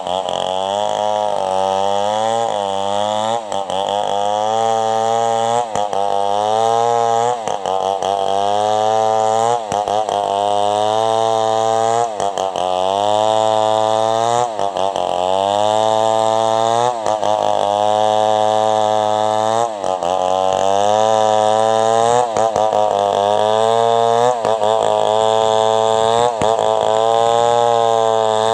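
Home-assembled two-stroke chainsaw at full throttle ripping lengthwise through a squared timber. The engine pitch sags and recovers every two seconds or so as the chain bites into the wood.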